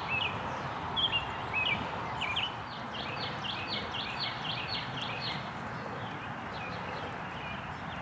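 A songbird singing: a few short whistled phrases, then a quick run of about ten falling notes, roughly four a second, that stops after under three seconds, over a steady outdoor hiss.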